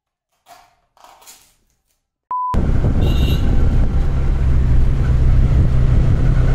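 Near silence with two faint rustles, then a short single-pitched beep about two seconds in. Right after the beep comes the loud, steady rumble and hiss of a moving vehicle.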